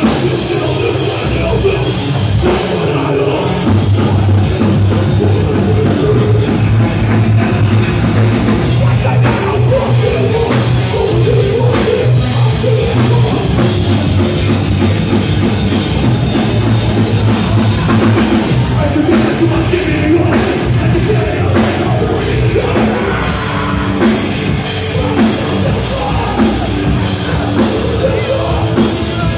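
Rock band playing loud and live: electric guitar, bass and drum kit, heard from in the audience.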